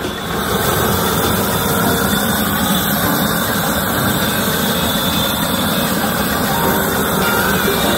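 SearPro multi-use propane torch, fed from a small propane cylinder, blasting a long jet of flame to sear a steak. A loud, steady rushing noise of the flame swells up in the first half second as the torch opens up, then holds level.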